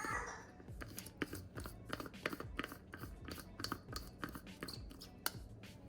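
Faint, irregular plastic clicks and scrapes of a smoothie blender's cup and lid being handled and fitted together one-handed, with one sharper click about five seconds in.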